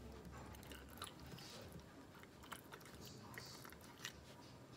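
Faint soft squishing and scattered light clicks of a plastic bubble-remover tool pushed down between pieces of raw salmon packed in a glass canning jar, working out trapped air before pressure canning.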